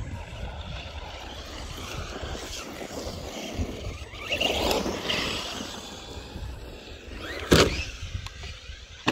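Arrma Senton RC short-course truck being driven over rough ground, with a rush of noise about four to five seconds in and a sharp knock about seven and a half seconds in.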